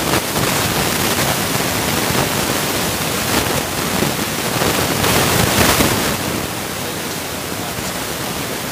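Steady rushing hiss, with scratchy patches from a marker writing on a whiteboard for the first six seconds; after that only the hiss is left, slightly quieter.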